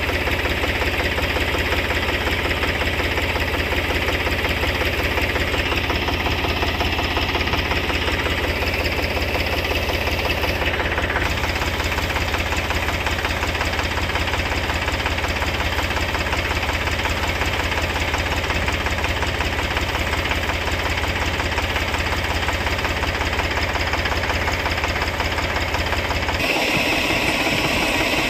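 Tractor engine running steadily at a constant speed, driving the mounted sprayer pump, with a low, even chugging drone. The low drone drops away about 26 seconds in.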